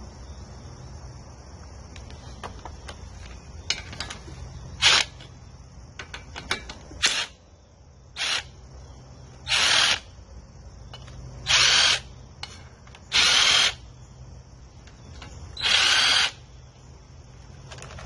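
Cordless drill/driver running in about seven short bursts, the later ones a little longer, as it backs bolts out of the mower engine's cylinder head cover, with a few light clicks between them.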